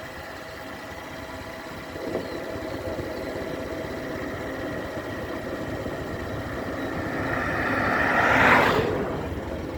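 Motorcycle engine running steadily. A louder rushing noise swells and fades away about eight and a half seconds in.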